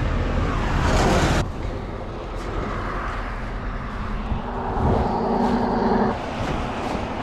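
Diesel wrecker engine idling close by, cut off abruptly after about a second and a half. Then steady road noise, with a louder vehicle going past about five seconds in.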